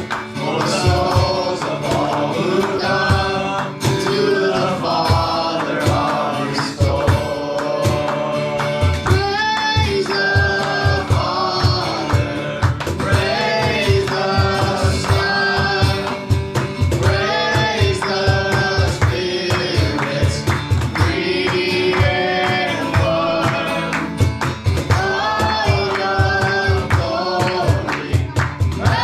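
Worship music: voices singing a song over a band with a steady, even drum beat.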